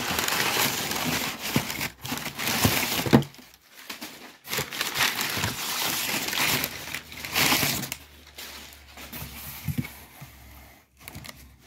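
Crumpled brown kraft packing paper crinkling and rustling in bursts as it is pulled out of a cardboard shipping box. After about eight seconds it goes quieter, with a few light knocks.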